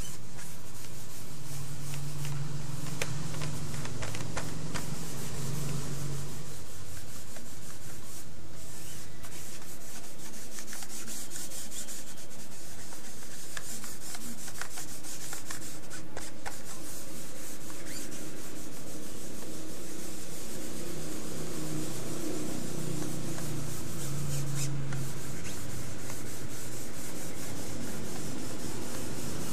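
Cotton ball rubbing machine oil over sheets of printed bond paper: a continuous rubbing with small scratchy clicks.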